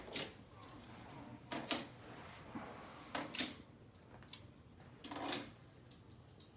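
Die-cast toy cars clacking as they are handled and set down, in four short bursts of clatter spaced about a second and a half apart.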